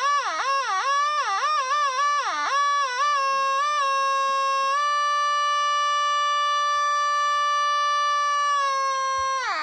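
Electric guitar through a Zvex Fuzz Factory fuzz pedal, giving a squealing synth-like tone that swoops down and back up in pitch several times. It then holds one steady note for about five seconds, slides down in pitch and cuts off near the end.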